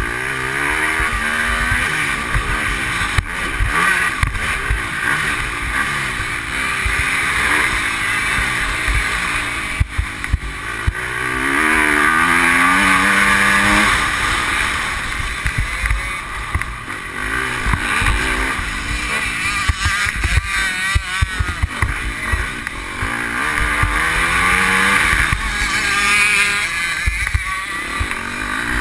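Motocross bike engine under hard acceleration, heard on board: the revs climb, drop back at each gear change or corner, and climb again, over and over.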